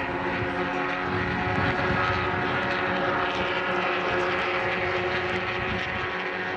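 A pack of small-engined 850 cc sedan race cars running at high revs on the circuit, their engines blending into one steady buzzing drone that swells slightly as the pack comes closest, about two seconds in.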